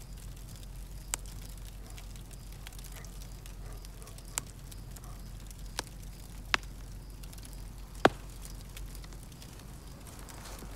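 Wood campfire burning, with five sharp pops from the burning logs over a steady low background rumble. The loudest pop comes about eight seconds in.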